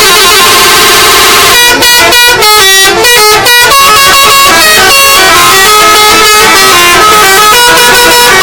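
Indonesian 'telolet' musical bus horns playing loud tunes, with overlapping melodies of stepped horn notes and a run of short choppy notes in the middle.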